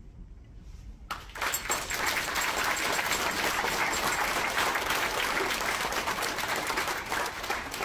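A roomful of people applauding, breaking out suddenly about a second in and carrying on steadily.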